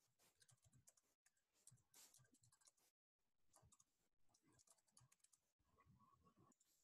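Faint typing on a computer keyboard, an irregular scatter of soft key clicks, with the audio dropping out completely for short moments about four times.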